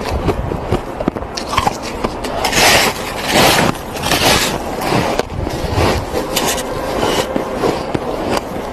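Bites taken from a snowball and chewed: a few crisp crunches of snow between about two and a half and four and a half seconds in, over a steady low rumble.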